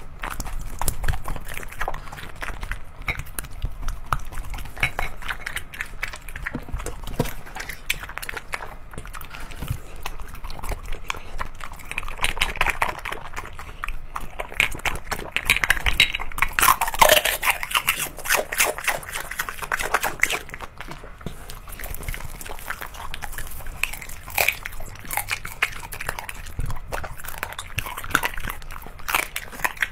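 A beagle eating from a plate, chewing and smacking wetly with dense, continuous mouth clicks, loudest about halfway through.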